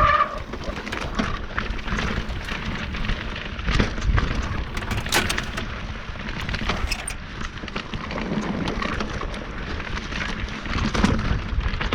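Mountain bike rolling over rough, wet trail: rattling and clicking from the bike over a steady rumble of wind on the microphone.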